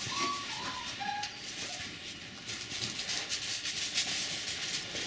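Border collie puppy whimpering: several short, high whines in the first two seconds, over a steady hiss of rustling noise.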